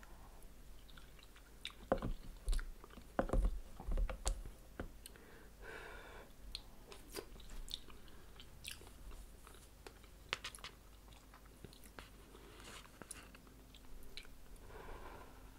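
Close-miked mouth sounds of someone chewing a mouthful of instant cup noodles. The wet smacks and clicks are loudest in a cluster about two to four seconds in, then thin out to softer, sparser chewing.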